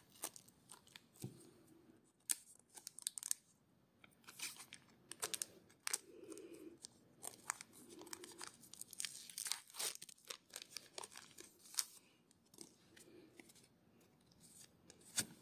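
Scissors snipping open a foil Pokémon booster pack, then the foil wrapper crinkling and rustling in faint, irregular crackles as the cards are pulled out.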